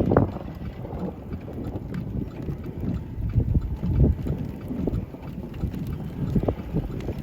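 Wind buffeting the microphone in uneven gusts, a low rushing noise that peaks just at the start and again about four seconds in.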